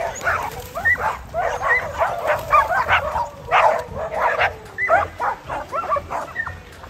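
A pack of dogs barking and yipping over one another, several calls a second, with high rising yelps mixed in: excited barking of dogs at play.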